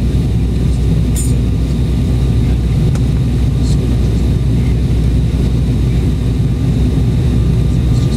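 Embraer 195 airliner cabin noise on the descent, heard from a window seat in the rear of the cabin: the even, deep roar of its turbofan engines and the airflow, with a faint steady high tone and a couple of faint brief ticks.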